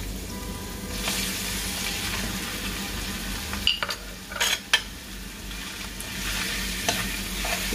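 Ground pork sizzling as it fries in a hot wok with sautéed garlic and onion; the sizzle grows louder about a second in as the meat lands in the pan. Around the middle come a few sharp metallic scrapes and clinks of a spoon against the wok as the meat is stirred.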